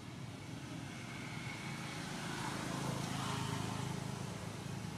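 A motor vehicle engine running, growing louder to a peak about three seconds in and then easing off slightly.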